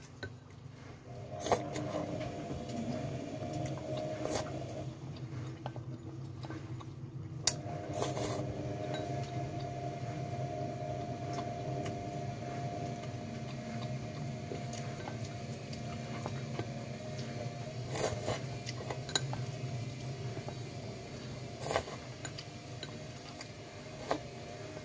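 Wooden chopsticks clicking against a ceramic noodle bowl a handful of times while noodles are eaten, over a steady low hum.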